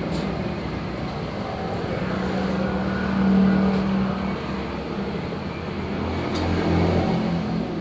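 A motor vehicle engine running with a steady low hum, growing louder twice: about halfway through and again near the end.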